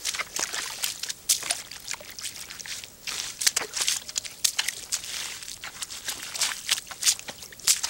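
Boots sloshing and scuffing in a shallow muddy puddle to wash the mud off: a run of irregular small splashes and swishes of water.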